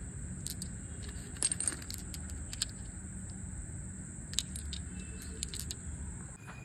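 Small steel engine parts, hydraulic lash adjusters and rocker arms, clinking against each other as they are picked up and turned over in the hand: scattered light metallic clicks over a steady background hiss.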